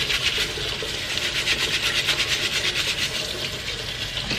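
Stiff scrub brush scrubbing a Bosch dishwasher filter in quick, even back-and-forth strokes, several a second, working grime off the mesh.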